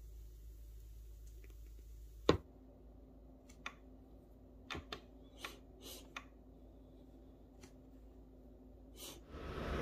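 Quiet room tone with one sharp click about two seconds in, followed by a scattered handful of light clicks and taps.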